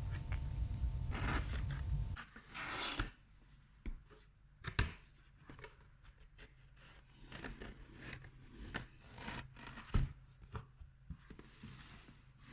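Cardboard shoe box and packaging being handled: scattered rustling, scraping and tearing with short sharp clicks and knocks. A low hum runs for about the first two seconds.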